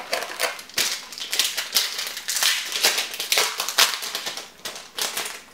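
Foil wrapper of a Yu-Gi-Oh booster pack crinkling and tearing as it is opened, with the cards being handled. It is a dense run of crackles and snaps that stops just before the end.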